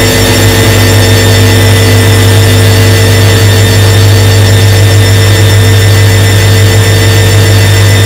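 Front-loading washing machine running with its drum turning: a loud, steady motor hum with fainter, higher steady tones above it.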